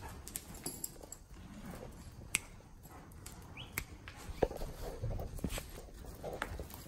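Horse's hooves thudding and shuffling irregularly in soft arena sand while it works a calf, with scattered sharp clicks and knocks.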